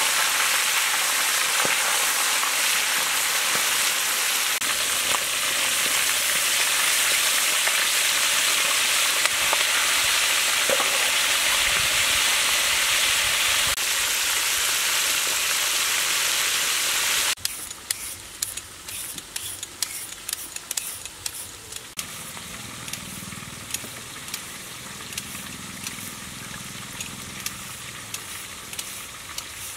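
Whole snakehead fish deep-frying in a wok of hot oil: a loud, dense sizzle. About two-thirds of the way through it drops suddenly to a quieter hiss with scattered sharp crackles.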